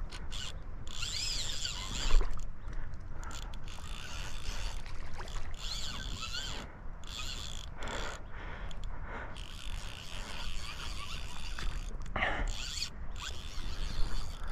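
Fly reel's click-and-pawl drag buzzing in stop-start runs, its pitch rising and falling with the speed of the line, as a big fish is fought on a 5-weight rod.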